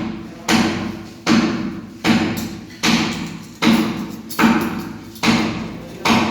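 Hammer blows struck at a steady pace, about one every 0.8 seconds, each with a short ringing tail.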